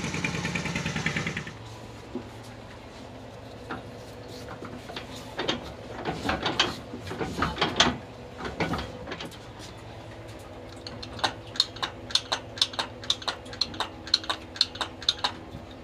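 S1115 single-cylinder diesel engine running, then cutting out about a second and a half in. Then scattered metallic knocks and clanks from hands working on the engine, and near the end a run of sharp clicks, about three a second, from a lever on the engine block being worked.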